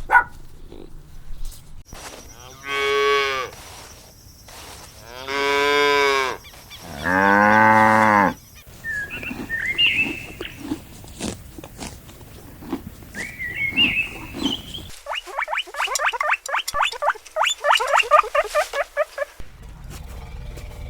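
Cows mooing: three long moos, the last one lower and loudest. These are followed by high chirps and a quick run of short calls, about four a second, in the second half.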